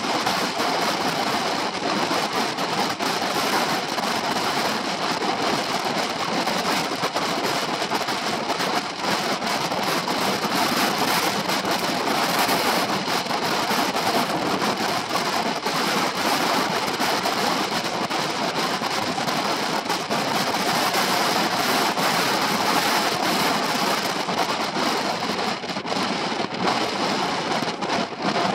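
Steady wind rushing over the microphone of a moving Honda PCX 125 scooter, with the scooter's running and road noise underneath.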